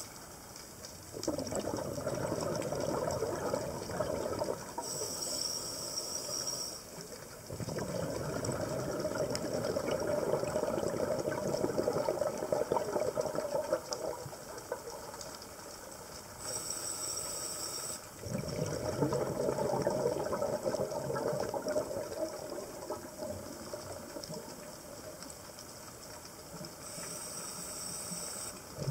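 Scuba diver breathing through a regulator underwater: a short hissing inhale, then a longer, louder rush of exhaled bubbles, repeating about every eleven seconds, with three inhales.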